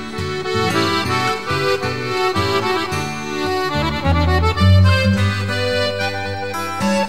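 Instrumental music: a melody over held chords and a bass line that steps from note to note, with no voice.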